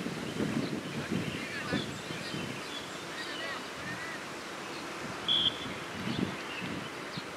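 Wind buffeting the microphone, with faint distant voices and one short high whistle blast about five seconds in.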